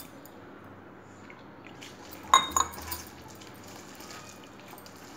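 A stainless steel mixing bowl clinking: two sharp, ringing metallic knocks in quick succession about two seconds in, then a fainter one, while a hand mixes thick gram-flour and onion batter in the bowl.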